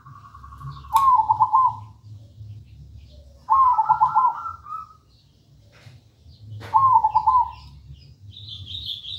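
Caged zebra dove (perkutut) cooing its staccato song: three quick runs of rolling notes, about three seconds apart. A higher, thinner chirping from another small bird comes in near the end.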